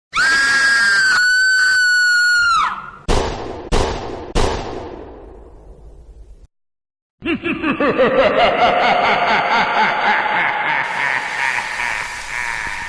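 A long high-pitched scream, then three sharp bangs that each ring away. After a brief silence, a dense warbling wash of sound effects swells up.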